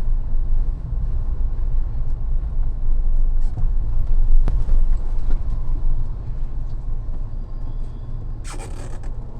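Mahindra Thar driving, heard inside the cabin as a steady low road-and-engine rumble. A sharp click comes about four and a half seconds in, and a short burst of noise comes near the end.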